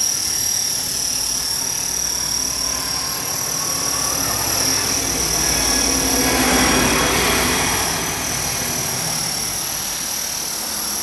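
Align T-Rex 450 SE electric RC helicopter flying low, its motor and rotor head giving a steady high-pitched whine. A broader rushing swell rises and fades around the middle.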